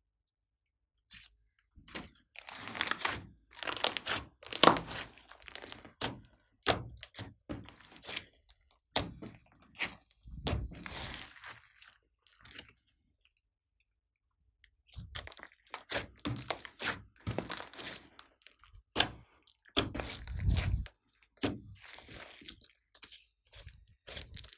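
Slime being squeezed, pressed and stretched by hand, making quick clicks, crackles and squelches in bursts, with a gap of silence about halfway through.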